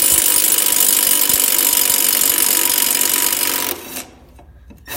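Milwaukee cordless impact wrench with a 9/16 socket hammering continuously on a lawnmower blade bolt, working it loose; it stops about three and a half seconds in, followed by a couple of short blips of the trigger.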